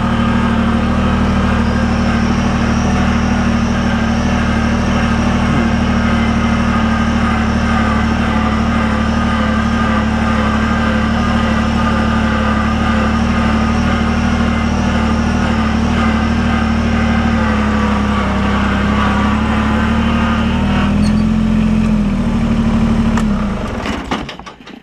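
Compact tractor engine running steadily while the tractor is driven, then switched off near the end, winding down to a stop.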